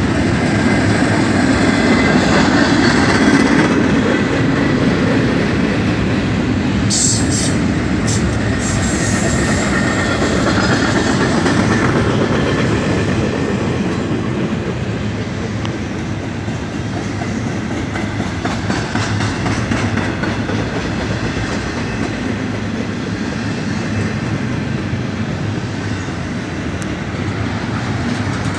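Double-stack intermodal freight train's well cars rolling past close by: the steady, continuous noise of steel wheels running on the rails, a little louder in the first few seconds and then even.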